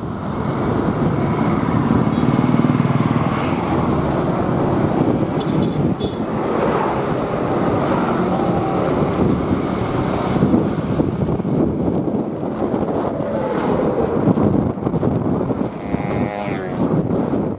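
Motorcycle ride: a small motorcycle engine runs under steady road and wind noise, its pitch rising and falling a few times as it speeds up and eases off.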